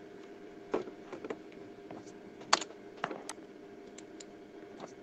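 Computer keyboard keys being typed in scattered, irregular keystrokes, one sharper than the rest about halfway through, over a faint steady hum.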